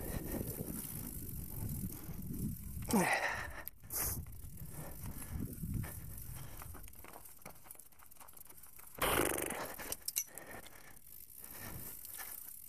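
Mountain bike rolling along a leaf-covered dirt singletrack: a continuous rumble of tyres over dry leaves and dirt, with the bike rattling over bumps. Louder brief rushes of noise come about three seconds in and again about nine seconds in.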